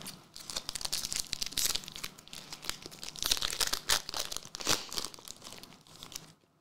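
Foil wrapper of a 2023 Upper Deck Marvel Platinum trading-card pack being torn open and crinkled, a dense crackling that stops abruptly near the end.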